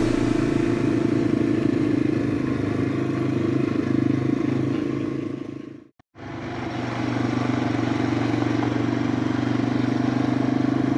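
Small single-cylinder Yamaha dual-sport motorcycle engine running steadily at cruising speed. The sound fades out to silence about six seconds in and fades back in.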